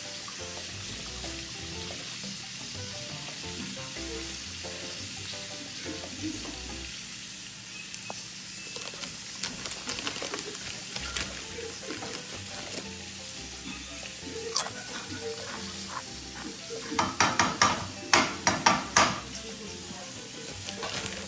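Fish frying in a pan with a steady sizzle, stirred now and then with a few light clicks. Near the end comes a quick run of loud sharp clatters of a utensil against the pan.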